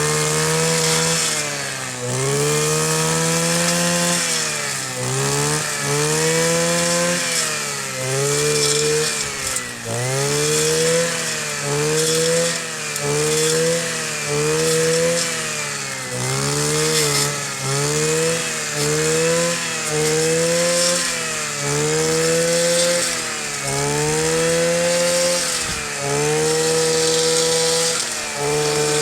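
Kioritz 260 brush cutter's small two-stroke engine running at high revs, its pitch dropping and climbing back about every one to two seconds as the throttle is eased and opened again while cutting grass.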